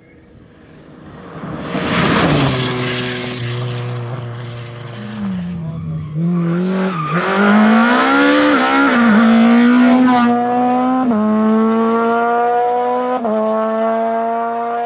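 A Peugeot 306 rally car goes past at speed, with a burst of tyre and road noise as it passes. The engine note then dips and climbs several times before it accelerates away in a long rising pull, broken by brief gear changes.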